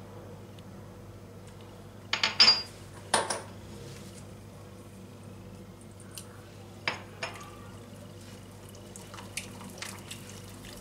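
A metal utensil and small plastic measuring cups clinking and tapping against a glass bowl: a cluster of sharp knocks a couple of seconds in, two more a few seconds later, then quick light ticking as an oil, flour, starch and vinegar mix is stirred in the bowl near the end.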